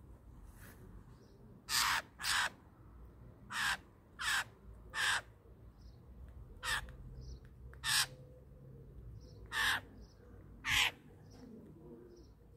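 Young Eurasian jay giving harsh, rasping screeches, nine short calls about a second apart.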